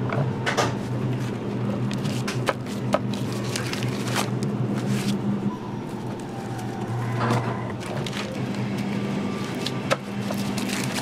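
Gimbap rice sheet machine running with a steady low hum as it pushes a flat sheet of cooked rice out onto its tray, with scattered sharp clicks and taps.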